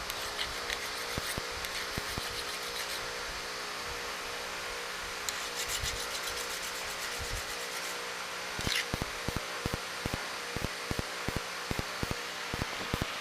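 A diamond flat bar rubbed by hand against the tip of a high-speed steel lathe threading tool, a steady rasping as the ground end is honed clean. About two-thirds of the way through, quick light clicks and taps join the rubbing.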